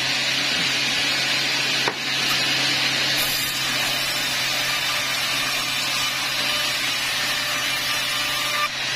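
Large vertical band-saw mill running and cutting through a teak log: a steady hiss of the blade in the wood over a low, even motor hum. A brief knock comes about two seconds in.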